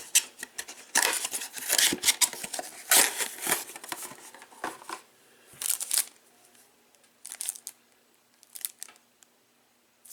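Plastic wrapping on a pack of trading cards crinkling and tearing as it is opened, with cards being handled. It grows quieter after about six seconds, leaving a few light clicks.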